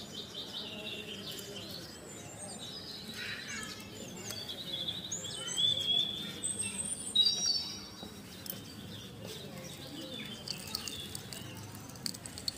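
Birds chirping and calling, short high whistled notes and little glides scattered throughout over a faint background hiss.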